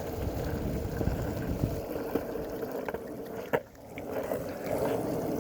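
Kick scooter wheels rolling over wet pavement: a steady hiss with a few light clicks and one sharp knock about three and a half seconds in.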